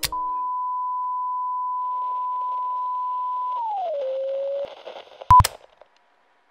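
Bars-and-tone test signal: a steady, pure electronic reference tone that after about three and a half seconds slides down in pitch and holds lower, over faint static. It stops, and near the end there are two sharp pops close together.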